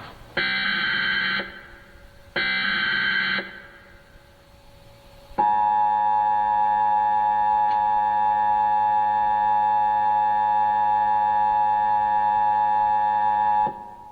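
Emergency Alert System broadcast: the last two of the three screeching digital header bursts, each about a second long and a second apart, then about eight seconds of the loud, steady two-tone attention signal that opens a National Weather Service tornado warning.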